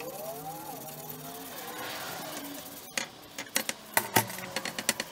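A quick run of about a dozen sharp clicks and knocks in the second half, from hands and tools working on water-heater piping overhead. Before them, faint wavering tones.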